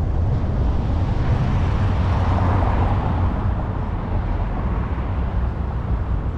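Motorcycle running steadily at road speed, its engine sound mixed with road and wind noise.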